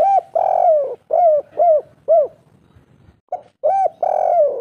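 Spotted dove cooing at close range: a short coo and a long drawn coo, then three short coos, the 'kuk 3' ending that bird keepers prize. After a pause of about a second the bird starts the next phrase with two short coos and another long coo.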